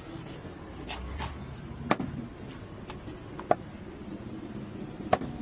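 Large knife knocking against a wooden log chopping block while a rusty jobfish is cut up: a handful of sharp, separate knocks at uneven gaps, over steady low background noise.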